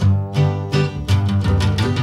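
Background music played on guitar, notes plucked and strummed in a quick, steady rhythm over a bass line.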